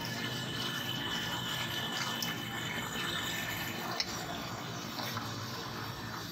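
Steady sizzling hiss of hot oil in a deep fryer, with one sharp metallic clink about four seconds in as the steel scoop knocks against the bowl.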